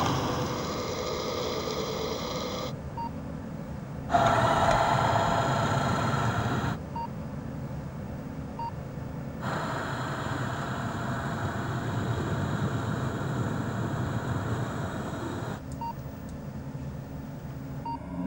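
Steady hum and hiss of a remotely operated underwater robot's thrusters as it descends, changing abruptly several times, with faint short beeps now and then.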